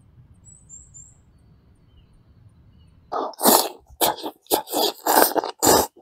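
A man eating noodles makes a quick run of loud, sharp mouth sounds, starting about halfway through, some seven bursts in under three seconds. Before them there is only faint forest quiet with a few high bird chirps.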